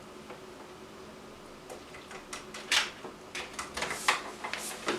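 Scattered clicks and light knocks of hands handling a keyboard and plugging in its USB connectors; the first second or so is quiet, the loudest click comes near the middle, and a run of smaller clicks follows.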